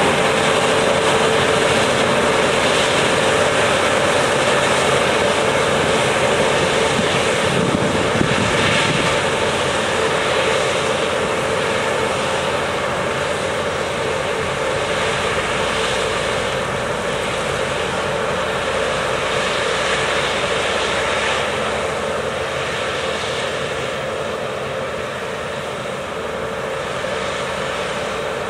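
Claas combine harvester at work in a cereal field, its engine and threshing gear giving a steady drone with a constant hum. The sound fades gradually as the machine moves away.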